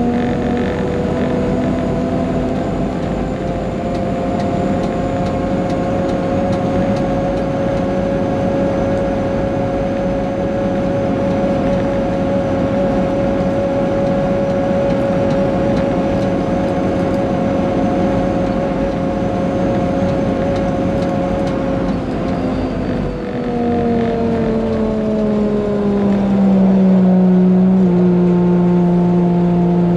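Caterpillar 140G motor grader's six-cylinder diesel engine running steadily under way, with a steady whine over it. About three-quarters of the way through, the pitch falls in steps and the sound gets a little louder.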